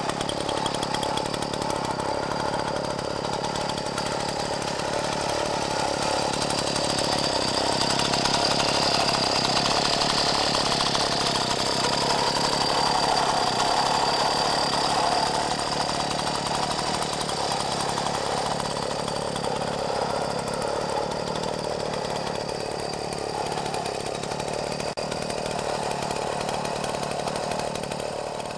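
Jawa 550 Pionyr moped's 50 cc single-cylinder two-stroke engine running steadily, a little louder for several seconds in the middle.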